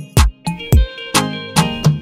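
Guitar background music with a steady beat, about two beats a second.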